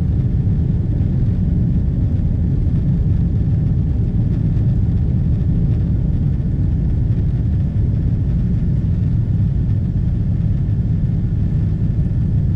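Steady low rumble of a Boeing 777-200's jet engines and rushing airflow, heard inside the passenger cabin as the airliner climbs after takeoff.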